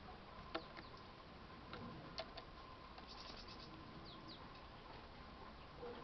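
Faint high calls of small songbirds: a quick run of ticking notes about three seconds in and two short falling notes just after, with a couple of sharp clicks earlier on.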